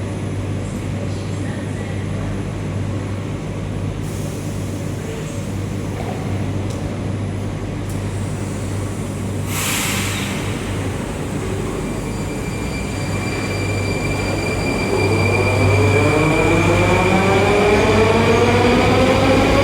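Moscow metro train in the station: a steady low hum, a short hiss about ten seconds in, then the traction motors' whine rising in pitch and growing louder as the train accelerates.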